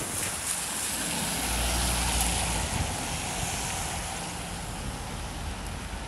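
A motor vehicle passing on a wet street: an engine hum and tyre hiss swell about a second in and fade after three seconds, over steady rain.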